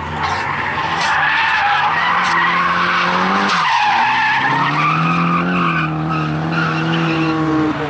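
Drift car engines held at high revs while the tyres screech in a slide; about three and a half seconds in the revs drop sharply, then climb again and hold.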